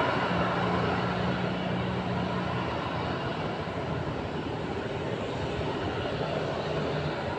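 Boeing 737-800's CFM56 jet engines running steadily at idle, an even rushing whine. A low engine hum from the pushback tug pulling away is heard for the first few seconds.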